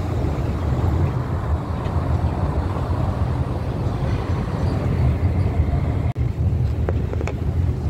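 Tokyo Monorail car running at speed on its rubber-tyred straddle beam, heard from inside the cabin as a steady low rumble, with a couple of faint ticks about seven seconds in.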